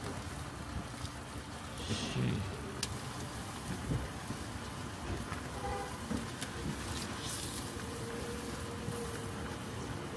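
Steady hiss of a gas-fired yakitori grill with chicken skewers sizzling on it. There are a few light clicks as skewers are handled, and short louder hisses about two seconds in and again past seven seconds.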